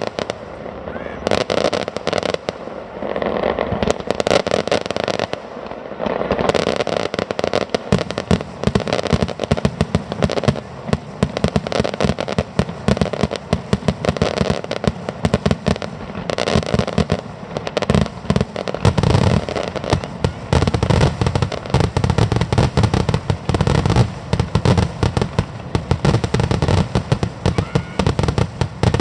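Aerial fireworks going off in a dense, continuous barrage of rapid bangs and crackles with no pauses.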